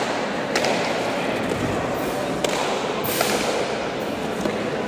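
A pelota ball struck by bare hands and hitting the front wall and floor of an indoor court: a few sharp, echoing cracks over a steady hall murmur.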